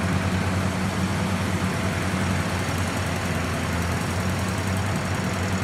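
Kubota rice combine harvester running steadily under load while it cuts and threshes standing rice: a continuous engine drone with a low, even hum and the rush of the threshing machinery.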